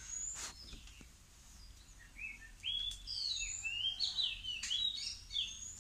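A songbird singing a quick run of varied chirps and whistled notes, some rising and some falling, becoming busy about two seconds in.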